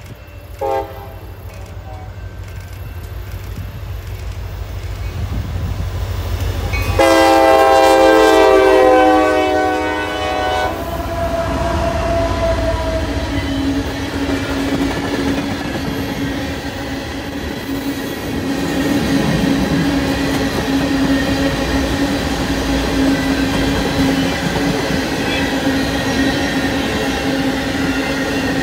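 A CSX EMD SD40-2 diesel locomotive approaches with its rumble growing, sounding its horn in a brief toot about a second in and then a long blast from about 7 to 10 seconds in, the loudest part. After that a long string of tank cars rolls past, the wheels clattering over the rail joints with a steady low drone.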